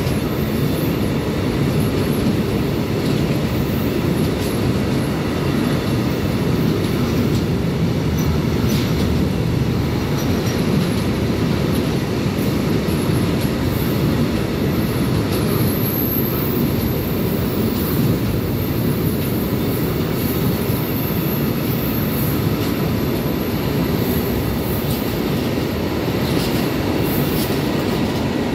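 Container flat wagons of an intermodal freight train rolling past close by: a steady rumble of wheels on rail, with occasional knocks and faint high wheel squeal now and then.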